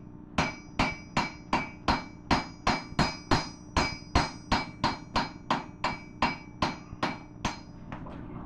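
Blacksmith's hammer striking a red-hot steel flint striker on an anvil in a steady rhythm, about twenty blows at roughly two and a half a second, each with a short metallic ring. The blows stop shortly before the end, followed by two light taps.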